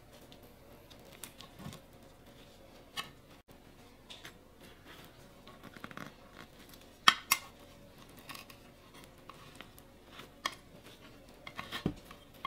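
Irregular light clicks and knocks of kitchen utensils and dishes being handled, with two louder sharp knocks close together about seven seconds in.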